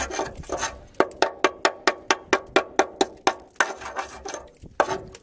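A hand tool scraping and chipping at a rusted steel chassis rail: a few rubbing scrapes, then a quick run of sharp taps about four or five a second that thins out near the end, knocking off loose paint and rust from a rail rotted through.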